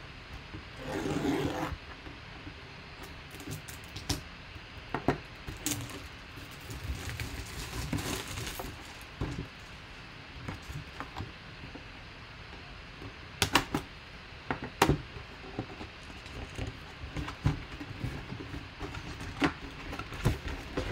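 A cardboard product box being handled and opened by hand: a brief rustle about a second in, then scattered taps and knocks as the box is turned over and its lid flap lifted.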